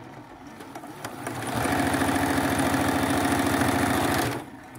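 Electric sewing machine stitching a straight seam through two layers of quilting cotton: it starts about a second and a half in, runs at a steady speed with a fast even needle rhythm for about three seconds, then stops.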